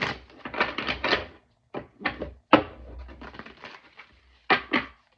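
Tarot cards being shuffled and handled, in several short rustling bursts.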